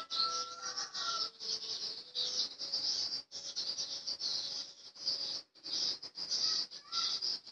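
Swiftlet calls from an edited lure recording used to attract swiftlets to a nesting house: a dense, high-pitched buzzing chatter of trills, broken by short gaps about every one to two seconds.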